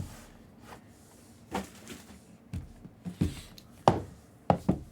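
A handful of short knocks and thuds, about six, spaced irregularly: objects being handled and set down on a table.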